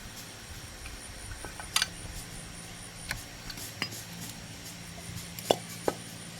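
Metal tools and small motorbike engine parts clinking as they are handled: five or six sharp separate taps over a faint steady hum.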